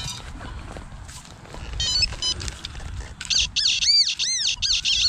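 Wood chips rustling and scraping, with a handheld metal-detecting pinpointer beeping briefly about two seconds in; from about three seconds in the pinpointer sounds a quick run of high tones, each rising and falling in pitch, as it picks up a buried metal target.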